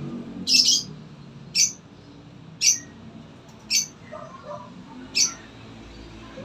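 A bird calling five times, short high-pitched calls about a second apart.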